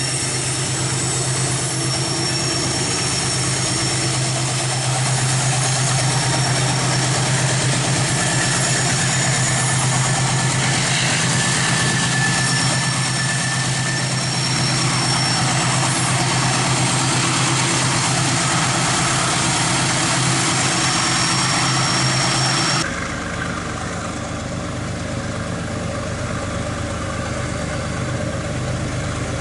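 Diesel freight locomotive engine running steadily with a low hum. About three-quarters of the way through the sound changes abruptly to a somewhat quieter, steady engine sound.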